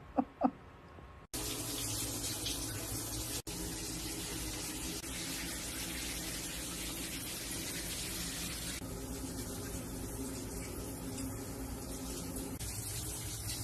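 Water running steadily in a shower, starting suddenly about a second in after a couple of short sounds.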